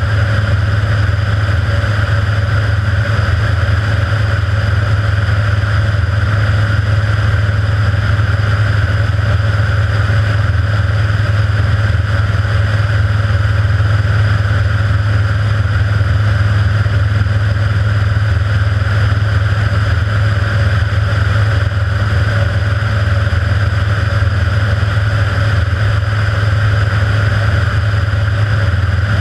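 Kitfox IV floatplane's engine and propeller running steadily in cruise flight: a loud, even drone with a strong low hum that does not change.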